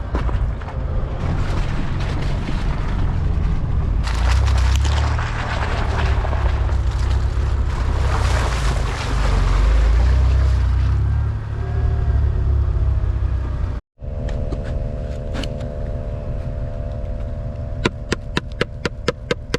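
4x4 truck driving through snow: a steady low engine and drivetrain rumble under a hiss of tyres and snow that swells in the middle. After a sudden cut, a steady hum follows, with a quick even run of clicks near the end.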